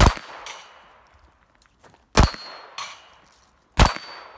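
Three pistol shots, about two seconds apart, each followed by the metallic clang and ring of a steel target plate being hit.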